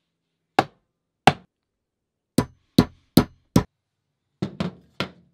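Ball-peen hammer striking a hard surface nine times, each a sharp knock that dies away quickly. There are two widely spaced blows, then four evenly at about two and a half a second, then three quicker ones near the end.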